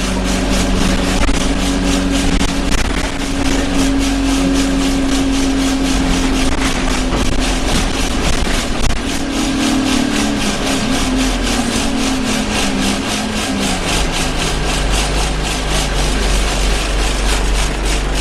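Inside an Alexander Dennis Enviro 200 single-deck bus on the move: the engine runs with steady tones that drop in pitch about halfway through, under a loud, continuous rattling vibration from the bus's interior.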